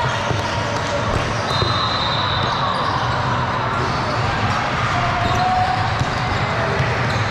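Basketball gym crowd hubbub: many overlapping voices ringing in a large hall, with scattered light knocks and a short high tone about a second and a half in.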